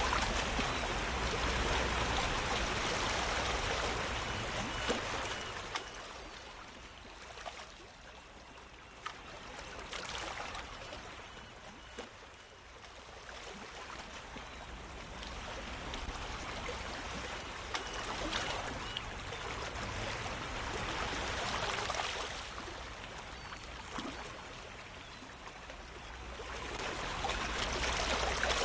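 Running-water ambience sound effect: a steady rushing like a flowing stream, swelling and fading every several seconds, with a few faint clicks.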